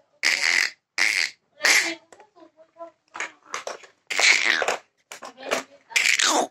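A toddler laughing breathily in short bursts, with a little babble between them. Near the end comes a squeal that slides down in pitch.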